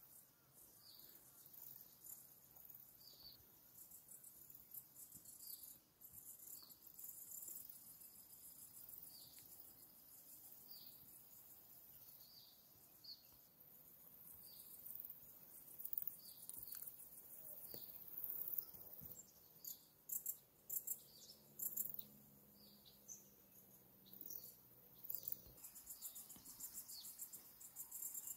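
Faint outdoor ambience of insects chirping in a high, buzzing chorus, with a bird giving a short call every second or two.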